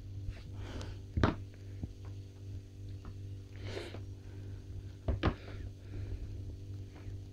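A kitten and a hand scuffling on a wooden floor: a few sharp knocks, the loudest two about a second in and about five seconds in, with soft rustling, over a steady low hum.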